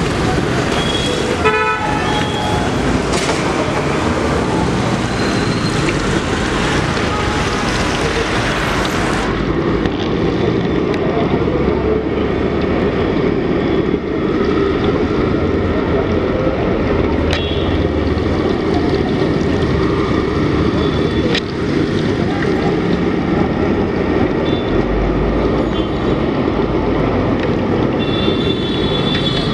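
Busy street traffic with car horns honking, one about a second and a half in. After a cut about nine seconds in, a wok of oil sizzles as battered fritters deep-fry in it, with traffic running behind and another horn near the end.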